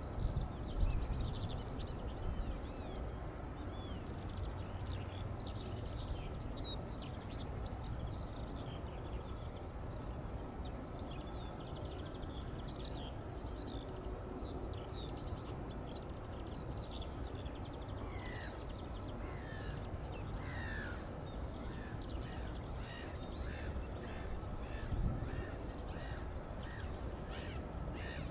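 Wild birds chirping and calling over a steady low rumble. About two-thirds of the way in, one bird starts a run of short, falling calls that repeat roughly once a second.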